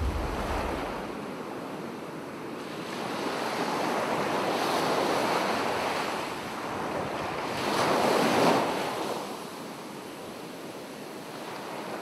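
Ocean waves washing in with wind, swelling and fading, the biggest swell about eight seconds in.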